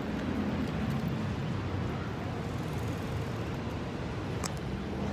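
Steady low rumble of outdoor city ambience, with one faint tick about four and a half seconds in.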